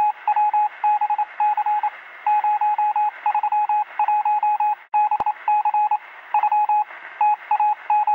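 Morse code beeping over radio static: a single high beep keyed on and off in short and long pulses, with one sharp click about five seconds in.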